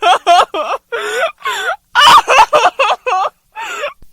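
A woman crying hard: a string of short, wailing sobs whose pitch quavers up and down, broken by brief pauses.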